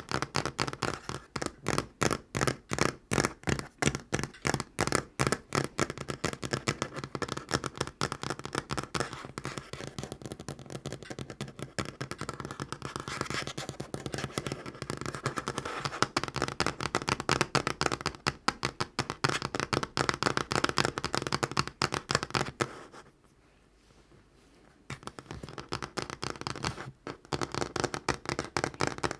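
Fast tapping of natural fingernails on a tabletop: a dense run of quick, crisp clicks, many a second, that stops for about two seconds near the end and then starts again.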